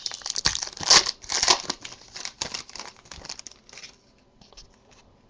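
A trading-card pack's wrapper being torn open and crinkled, in a quick run of sharp rustles, rips and clicks that thins out to faint rustling after about four seconds.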